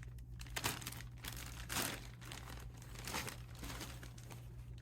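Plastic wrapping crinkling in a few short rustles as a replacement laptop screen bezel is handled, with a steady low hum underneath.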